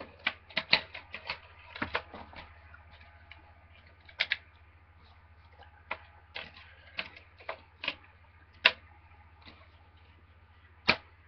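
Plastic DVD cases and their wrapping being handled: a string of sharp, irregular clicks and snaps, bunched together in the first couple of seconds and then spaced out. A steady low hum runs underneath.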